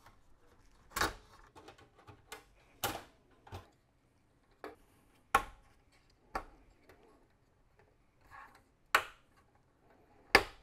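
Irregular sharp clicks and knocks, about ten of them, as an Amiga 4000 motherboard and its parts are handled and fitted into the computer's metal chassis. The loudest come about halfway through and near the end.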